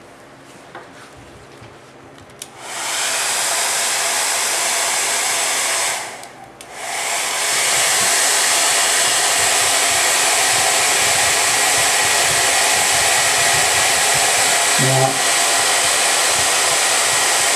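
Small handheld hair dryer blowing steadily, drying a wet watercolour painting. It switches on about two and a half seconds in, cuts out briefly around six seconds, then runs on steadily.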